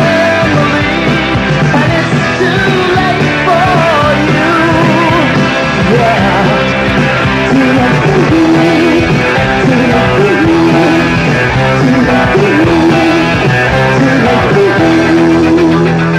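Live rock band playing a loud instrumental passage: electric guitars, bass, keyboards and drums.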